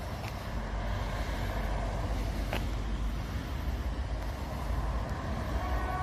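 Passing car traffic: a steady rumble of engines and tyres. The outdoor warning siren's steady tone comes on just at the end.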